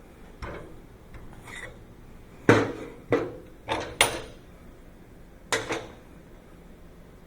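Steel parts clanking against metal in a string of sharp knocks, each with a short metallic ring. The loudest come in a cluster about two to four seconds in, with a quick pair near the end.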